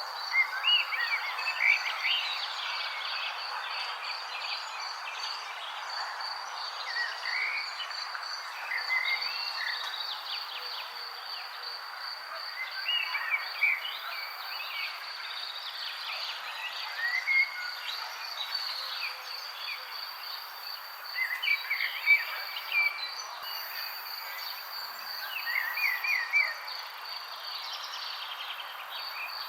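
Many birds chirping in short, scattered calls over a continuous high-pitched insect trill and a steady background hiss.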